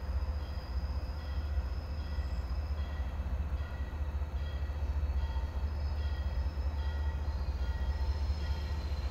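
Train approaching in the distance: a steady low rumble, with faint short high tones repeating less than a second apart.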